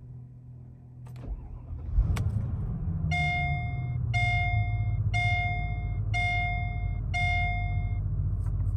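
The 5.0-litre V8 of a 2003 Mercedes-Benz SL500 is cranked by the starter, catches about two seconds in, and settles into a steady idle around 1000 rpm. Over the idle, the dashboard warning chime sounds five times, once a second, with the red seatbelt warning light lit.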